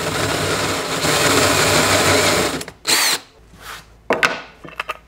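Hand drill with a 19 mm Forstner bit boring a counterbore into particleboard, running steadily, then stopping about two and a half seconds in. A short second burst of the drill follows just before three seconds, then a few light knocks.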